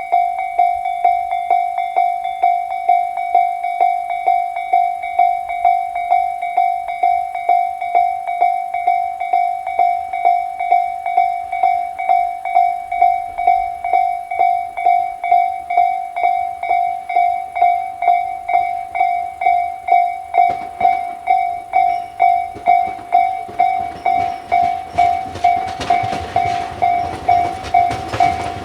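Japanese railway level-crossing warning bell ringing, an electronic ding repeated about twice a second: the crossing is closed for a train. About 20 seconds in, the rumble of an approaching train rises beneath it and grows louder near the end.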